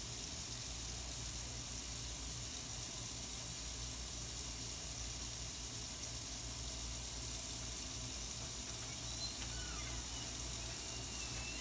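Tap water running steadily into a stainless steel sink while a wet surgical scrub brush rubs over the fingers and hand.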